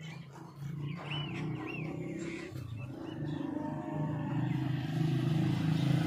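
Motorcycle engine running, a low pulsing drone that grows steadily louder as the bike approaches.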